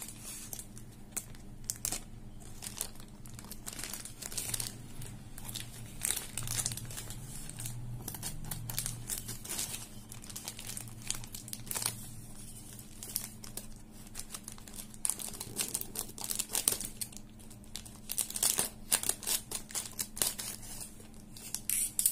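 Plastic courier mailer bag crinkling and tearing as it is cut and pulled open by hand, in irregular crackly bursts.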